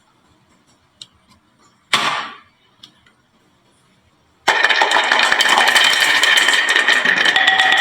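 Marbles on a wooden marble run: a few sparse clicks, a short loud rushing clatter about two seconds in, then from just past halfway a sudden loud, dense, continuous rattle with a steady high tone running through it.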